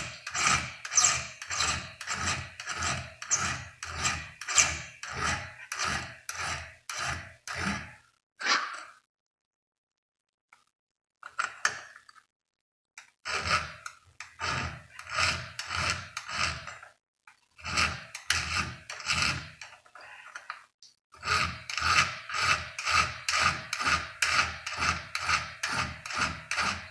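Flat file rasping in quick, even strokes, about two a second, taking down the rakers (depth gauges) of a chainsaw chain through a raker gauge. The strokes come in runs with short pauses between, one run per raker.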